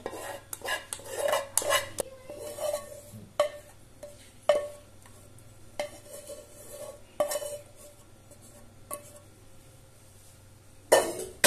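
Silicone spatula scraping and knocking inside a small metal saucepan as the last of a chocolate ganache is scraped out; about a dozen irregular knocks, several leaving a short ring from the pan, the loudest near the end.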